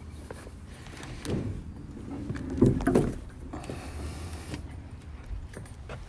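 Metal door of an enclosed cargo trailer being unlatched and swung open, with clunks and rattles that are loudest about two and a half to three seconds in, over a low steady rumble.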